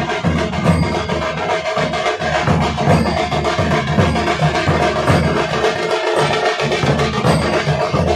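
Loud procession music driven by continuous rhythmic drumming, with sharp percussive strokes over a sustained tone.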